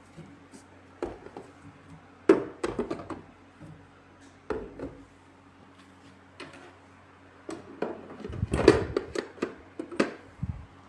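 Scattered knocks and light clatter of small hard objects being handled, busiest near the end, over a faint steady hum.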